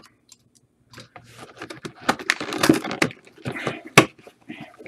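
Cardboard and plastic packaging being handled and torn open, crinkling and rustling with many small clicks and one sharp snap about four seconds in.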